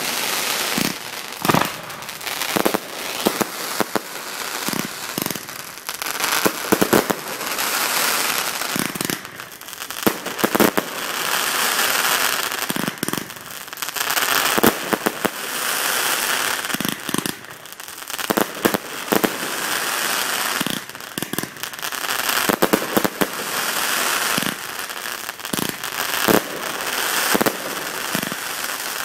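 Fireworks display going off close overhead: repeated sharp bangs of bursting shells, with stretches of dense crackling between them.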